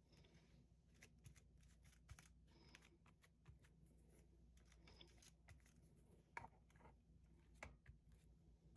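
Faint light taps and rustles of a glue brush and hands working bookcloth over book board, with two slightly louder taps near the end.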